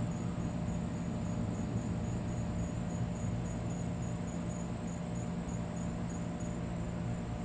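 A steady low hum, with an insect chirping in a high, evenly repeating pulse.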